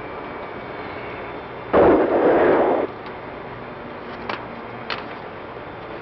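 A burst of static hiss on the crew's intercom loop, about a second long, cutting in and out abruptly about two seconds in. Two faint clicks follow.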